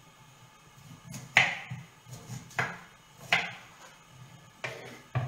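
A knife cutting romanesco broccoli on a wooden chopping board: about five sharp knocks spread out, the loudest about a second and a half in.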